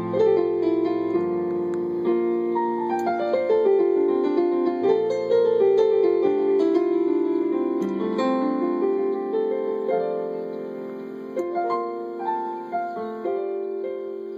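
Solo piano played without voice: rising and falling runs of notes over held chords, growing steadily quieter over the last few seconds.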